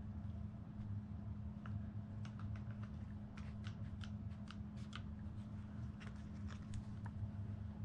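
A run of small, sharp clicks and taps, several a second, from handling a fishing reel and a plastic trigger-spray bottle, over a steady low hum.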